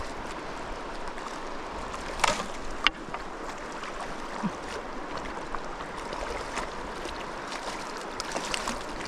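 Creek water running steadily, with two brief sharp sounds a couple of seconds in.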